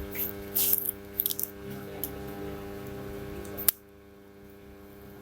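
Steady electrical mains hum, with a few short scraping, hissy sounds in the first two seconds. A sharp click comes just past the middle, and after it the hum is quieter.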